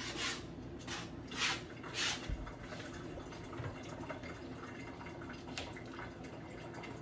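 Liquid splashing in a cooking pot as chopped onions, peppers and scallions go in: a few short splashes in the first two seconds and a fainter one later, over a steady low hum.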